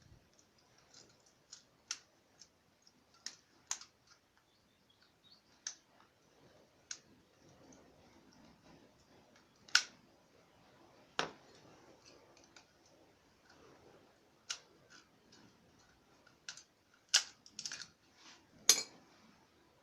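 Irregular sharp clicks and light knocks, a couple of dozen scattered through, the loudest in a few clusters near the middle and end. They fit hand tools and metal parts being handled while the tiller is being worked on.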